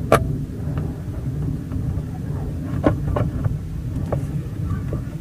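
Car side-mirror glass being pressed by hand into its plastic mirror housing: a few short sharp clicks and taps, one right at the start and a small cluster about three seconds in, over a steady low rumble.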